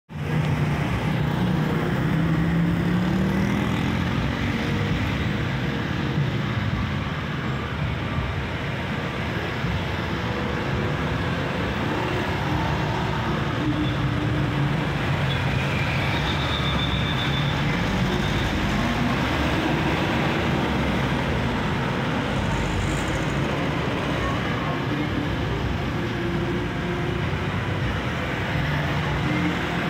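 Steady road traffic noise, with low engine tones that drift up and down in pitch.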